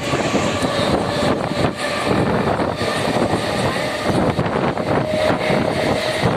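Mumbai suburban local train running: a steady, loud rumble and noise thick with rapid rattling and clatter.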